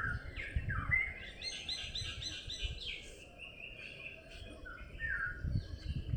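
A bird singing: a few short down-slurred notes, then a quick run of repeated chirps about a second and a half in, then more down-slurred notes near the end, over a low rumbling background noise.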